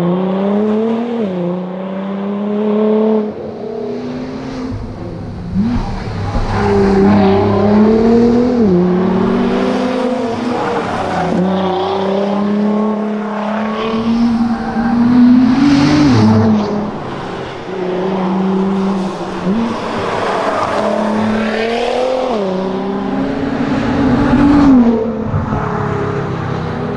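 Nissan R35 GT-R's twin-turbo V6 driven hard, its pitch climbing through the revs and dropping sharply at each gear change, over and over, with dips as it comes off the throttle.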